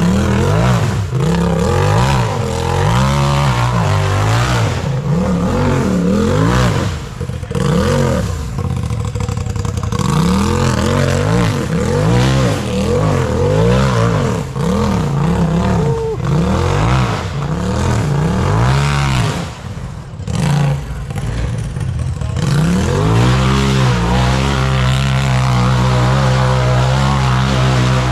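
Off-road race buggy's engine revving up and down again and again as it works up a rocky hill climb, then held at steady high revs for about five seconds near the end.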